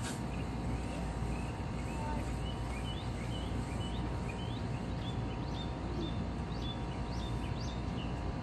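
A bird chirping again and again in short rising notes, about two a second, over steady low background noise, with a click at the very start.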